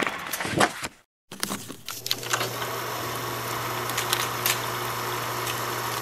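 Old film projector sound effect: a steady whirring hiss over a constant low hum, with scattered crackles and pops. It starts after a brief silence about a second in. Before that, the tail of the preceding logo sound fades out.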